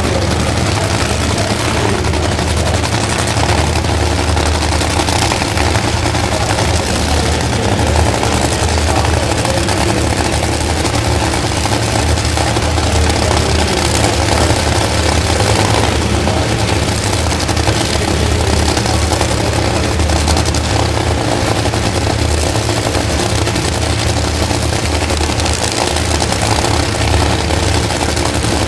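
Two Top Fuel dragsters' supercharged nitromethane-burning V8 engines idling, loud and steady, as the cars return to the start line and stage after their burnouts.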